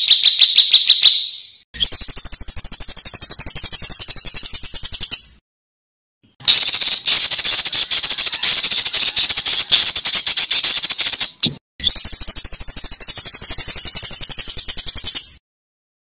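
Recorded songbird calls: fast, harsh rattling trills in four separate bursts with abrupt cuts and short silences between them, the longest and loudest in the middle. These are the 'tembakan kasar' (rough rapid-fire) phrases used as tutor recordings for competition songbirds.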